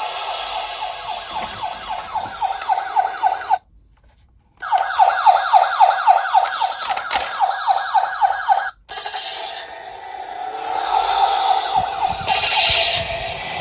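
Electronic emergency-vehicle siren in a fast yelp, about five sweeps a second, broken by a second-long gap. About nine seconds in it changes to a slower, wavering siren tone.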